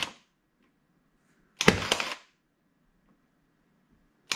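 Milwaukee M12 cordless 23-gauge pin nailer firing pins into a wooden board: each shot is a short mechanical burst of about half a second, a sharp snap followed by a few quick clicks. One shot comes about a second and a half in, another starts near the end, and the tail of an earlier shot is heard at the very start.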